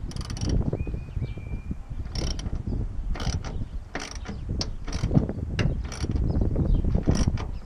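Hand ratchet wrench clicking in short rasping bursts, about ten of them at uneven intervals, as a tonneau cover clamp is tightened against the pickup's bed rail.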